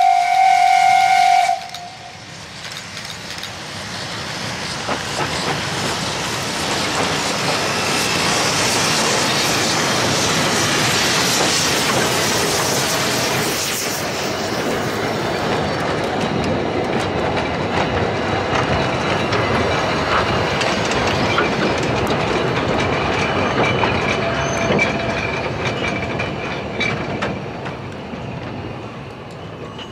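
A steam locomotive's whistle sounds and stops about a second and a half in. A narrow-gauge freight train then runs past, its rumble and wheel clatter on the rail joints building to a peak mid-way and fading toward the end.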